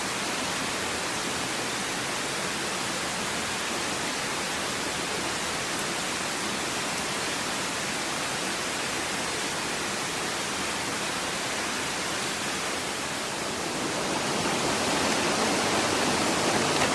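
Steady rushing water of a mountain stream, an even hiss with no distinct splashes, growing a little louder over the last few seconds.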